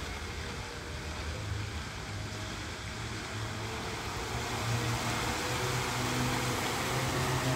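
Water jets of a large pool fountain rushing and splashing back into the water, the rush growing louder as a row of vertical jets starts up.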